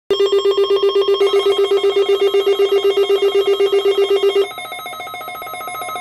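Alert Works NOAA weather radio receiver sounding its alert for the Required Weekly Test: a loud, rapidly pulsing electronic beep that stops about four and a half seconds in, leaving quieter steady tones.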